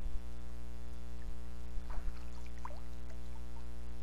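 A steady low electrical hum, with a few faint short water-like blips about two to three seconds in.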